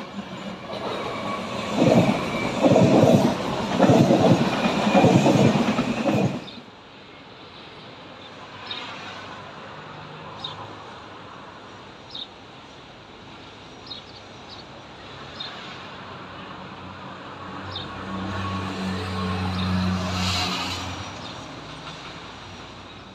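Trains running on the line. A few seconds of loud clatter give way to a quieter steady rumble of freight wagons rolling past, with wheel clicks over a rail joint every second and a half or so. A low hum swells near the end.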